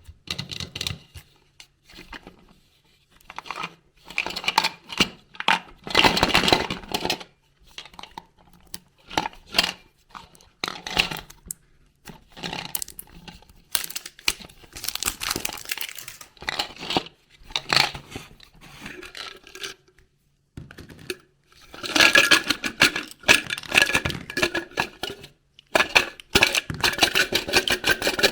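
Surprise egg packaging being torn open and crinkled by hand: irregular bursts of tearing and rustling with sharp clicks and taps, busiest near the end.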